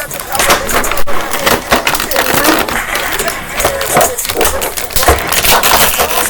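Dense crackling and tearing of toy packaging, cardboard and plastic being ripped and crushed as a boxed action figure is opened.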